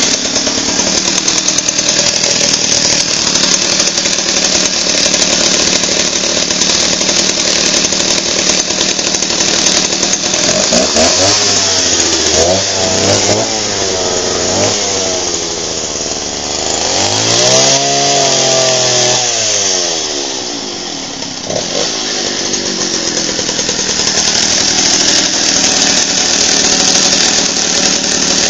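Stihl S10 two-stroke chainsaw running at high revs after a carburetor diaphragm replacement. In the middle stretch the revs drop and pick up again a few times, then it settles back to a steady high rev.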